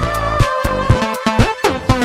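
Electronic music from an M-Audio Venom synthesizer layered with a Waldorf Microwave XT fed into its aux inputs: sustained synth tones over a quick run of drum-like hits, with a downward pitch sweep near the end.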